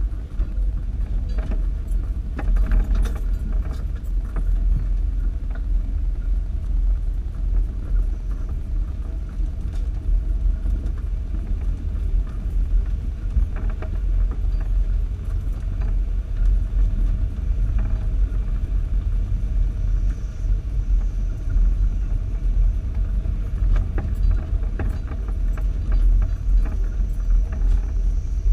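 Off-road 4x4 driving slowly along a rutted dirt trail, heard from a camera mounted on its hood: a steady low rumble of engine and tyres with frequent light rattles and knocks as the vehicle bounces over the ruts.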